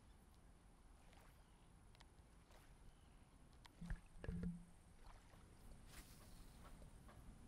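Near silence with a faint low rumble of outdoor air. About four seconds in there is a short, low-pitched sound in two quick parts, and a sharp click follows a couple of seconds later.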